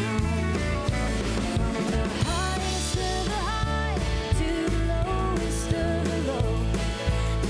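A worship band playing a song, with steady bass notes, drums and a bending melody line.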